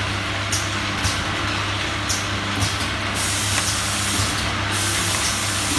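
Automatic small-bottle filling and capping machine running: a steady motor hum with a hiss of air that comes and goes and a few light clicks as the turntable indexes.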